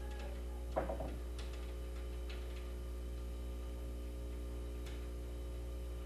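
Tools working the upper link assembly clamp studs and nuts off a bowling pinspotter's ball lift: a short metallic clatter about a second in, then a few sharp single clicks, over a steady low electrical hum.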